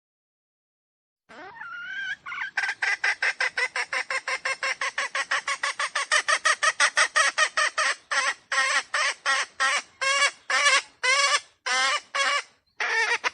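Red junglefowl (wild chicken) calling: a rising first note, then a long run of rapid clucking notes about five a second, spacing out to two or three a second near the end.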